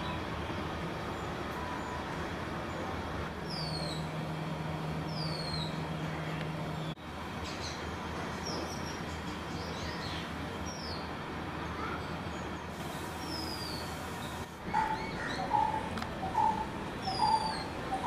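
Birds calling outdoors, with thin, quickly falling whistled notes every second or two. In the last few seconds a louder run of short, repeated whining calls comes in, about five in quick succession.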